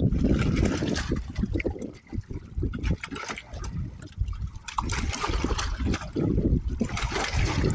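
Water trickling and lapping, irregular and uneven.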